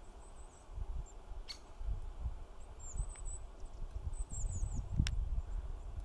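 High, thin calls of goldcrests, short notes given singly and in a little falling cluster about four seconds in. Underneath is a low rumble, with two sharp clicks about one and a half and five seconds in.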